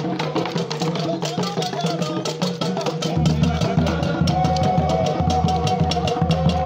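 Music with fast, dense drumming at a steady beat; a deep bass beat comes in suddenly about three seconds in.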